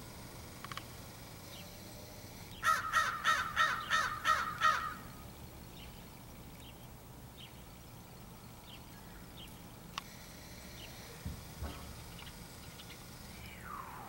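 Crow cawing: a quick run of about seven harsh caws lasting about two seconds, a few seconds in.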